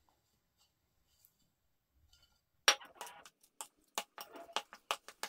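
A metal spoon clinking and scraping against a stainless steel mixing bowl while a thick ricotta and minced meat filling is stirred. A quick, irregular run of sharp clicks starts about two and a half seconds in, after near silence.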